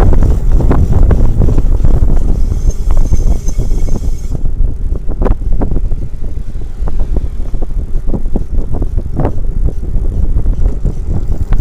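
Lectric e-bike being ridden: a loud low rumble of wind and road noise with scattered knocks and rattles. A faint high-pitched whine from the motor comes in about two seconds in and stops after about two seconds.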